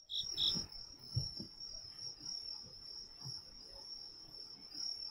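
Crickets chirring in a steady high trill, with a few soft low thumps, the loudest about a second in.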